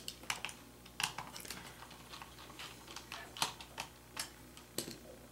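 Light, irregular clicks and taps, about a dozen, from hands working on a laptop's internal boards and plastic and metal parts during disassembly.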